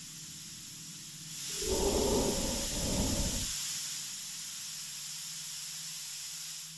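Steady hiss, with a louder, deeper rushing noise that lasts about two seconds, starting about a second and a half in.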